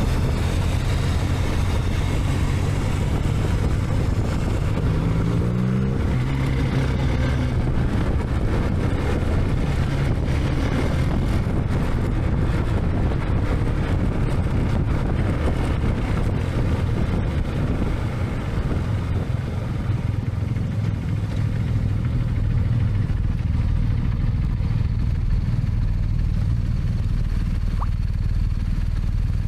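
BMW GS motorcycle engine running steadily while riding; its revs climb briefly about five seconds in and drop back about a second later.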